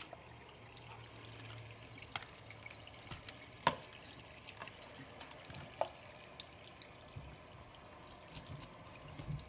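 Faint trickle of water in a stainless steel kitchen sink, with a few sharp clicks and knocks as fish are handled against the steel.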